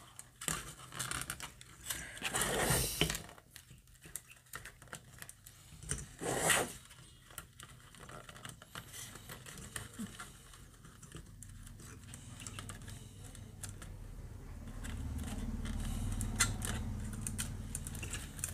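Hands handling thin wires against the plastic frames of computer cooling fans: light rustling, small clicks and scrapes, with two louder rustles about two and a half and six and a half seconds in. A low rumble rises in the last few seconds.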